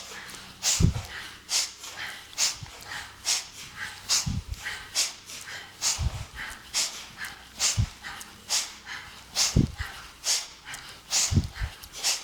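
Rhythmic sharp exhalations through the nose, a little faster than one a second, breathed out hard like blowing out a candle in time with a cross-body elbow-to-knee movement. A few dull low thuds fall in among the breaths.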